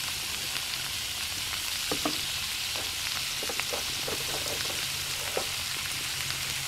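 Morel mushrooms, onions and ramps sizzling in melted butter in a cast iron skillet: a steady frying hiss with scattered small pops.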